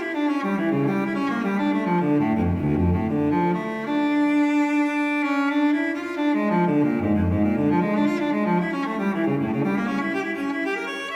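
Solo cello music playing a slow, sustained melodic passage, with notes sliding down into the low register twice.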